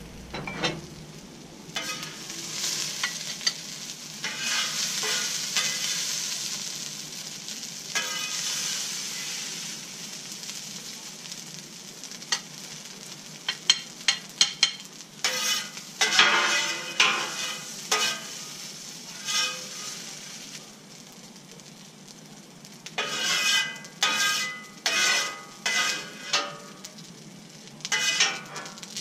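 Food sizzling on a hot steel flat-top griddle, then a metal spatula scraping across the griddle top in quick repeated strokes as the stir fry is scooped off.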